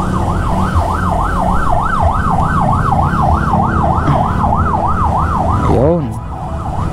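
Emergency vehicle siren in a fast yelp, rising and falling about three and a half times a second, over a low traffic rumble; the siren cuts off near the end.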